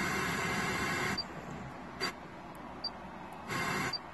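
FM radio static hissing through the truck's speakers from a Pioneer AVH-4800BHS head unit with no antenna connected, so no station comes in. The hiss cuts out about a second in and comes back twice in short bursts as the tuner is stepped up the dial, with a short high beep at each tap of the touchscreen.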